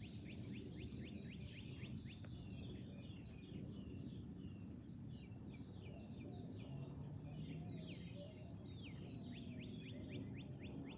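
Birds singing, with repeated quick runs of short downward-sweeping notes, over a steady low rumble of outdoor background noise.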